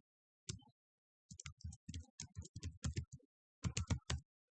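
Typing on a computer keyboard, entering a password: a single keystroke, then a quick run of about a dozen, and a final burst of four close together near the end.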